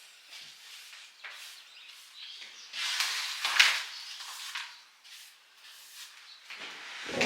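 Handling noise from unpacking a new camera: scattered rustles and small clicks, with a louder rustle about three seconds in.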